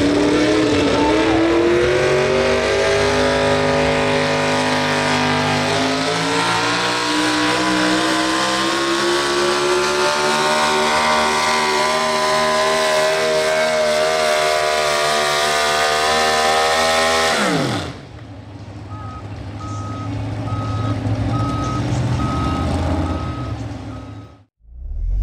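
A Ford Super Duty pickup's engine held at full throttle while pulling a weight-transfer sled, its pitch climbing slowly. About 17 seconds in the revs drop away sharply as the throttle is released, leaving the engine running lower and an electronic beeping about twice a second.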